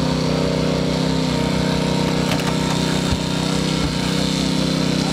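Small gasoline engine of a hydraulic rescue-tool power unit running steadily under load, driving the cutters and spreaders, with a few short sharp cracks about two to four seconds in.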